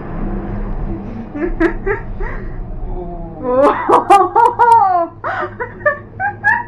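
Human voices making wordless cries that glide up and down in pitch, loudest around the middle, with shorter vocal sounds before and after, over a steady low hum.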